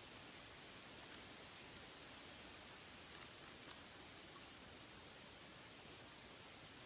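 Faint, steady high-pitched drone of insects, two unchanging tones over a quiet hiss, with a small click about three seconds in.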